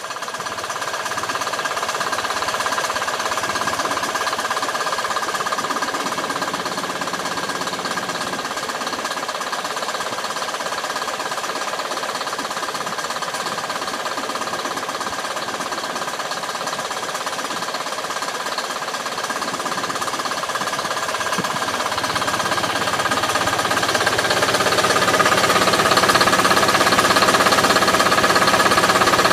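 GM Detroit Diesel 2-71, a two-cylinder two-stroke diesel in a 1949 Farmall M, running steadily. It fades in at the start and grows louder in the last few seconds.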